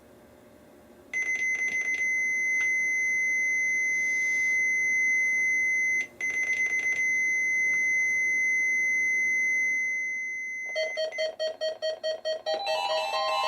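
Weather radio receivers sounding their electronic alert alarms. A steady high-pitched beeper tone starts about a second in and breaks off briefly near six seconds. Near the end, other radios join with rapid beeping and chiming alarm patterns that overlap.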